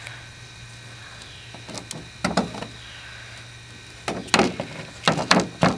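Handling noise from a paracord-wrapped knife being picked up and shifted on a ribbed plastic liner: a few short knocks and scrapes in two clusters, the later ones louder, over a steady low hum.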